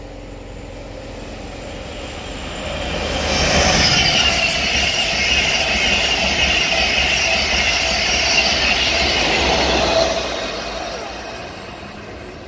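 LNER InterCity 225 electric express, a rake of Mark 4 coaches, passing through at speed with a rush of steel wheels on rail and air. It builds over about two seconds, stays loud for about six, then fades away.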